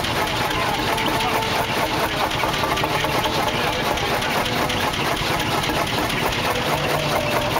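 Vintage Niel tractor engine idling steadily with a rapid, even beat.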